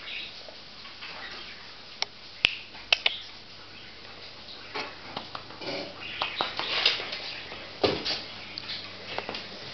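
A dog's sounds at close range: scattered sharp clicks and short noisy bursts, the loudest clicks about two and a half to three seconds in.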